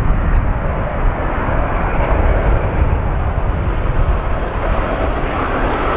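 Virgin Atlantic Airbus A350-1000's Rolls-Royce Trent XWB jet engines running as the airliner lands, a steady noise that grows a little toward the end. Strong wind buffets the microphone throughout, a heavy fluttering rumble underneath.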